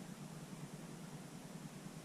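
Quiet room tone: a steady low hum under a faint even hiss.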